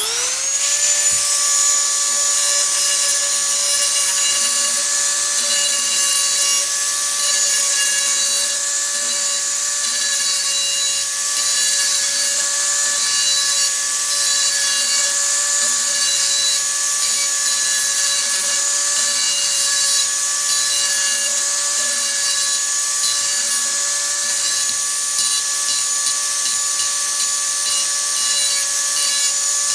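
Dremel 4000 rotary tool spinning up to a steady high whine, then grinding a steel tool edge to sharpen it. The rasp of the grinding comes and goes over the motor's whine.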